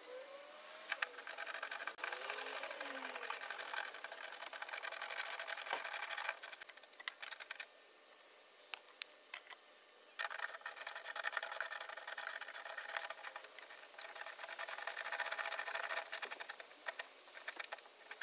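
A 10 mm socket ratchet clicking very rapidly as it backs off the spoiler's retaining nuts, in two long runs with a quieter pause of a couple of seconds between them.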